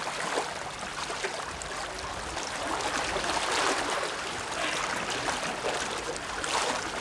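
Small sea waves sloshing and trickling among shoreline rocks, with light splashing at the water's edge.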